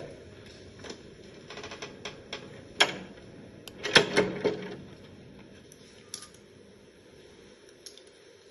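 Irregular sharp clicks and knocks over quiet room tone, the loudest a single knock about three seconds in and a short cluster about four seconds in.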